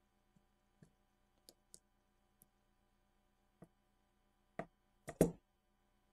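Light clicks and taps of fingers handling a plastic mold housing while pressing double-sided tape along its sides. The clicks are scattered and small at first, with a louder knock about five seconds in.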